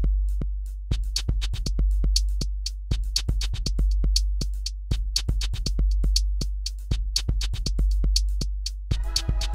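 Electronic music with a drum-machine beat: a deep bass drum and quick, sharp hi-hat-like clicks repeating in an even pattern. A chord of held synth notes comes in near the end.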